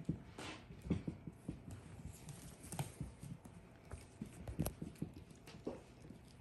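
Five-week-old doodle puppies scrabbling and wrestling on a hard floor: irregular light taps and knocks of small paws and claws, with the odd bump of rubber toys.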